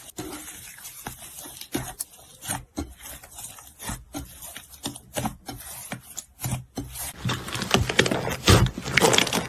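Slime being squeezed and worked: a run of short, sharp squishes and pops, one or two a second, that turns into denser, louder crackling about seven seconds in.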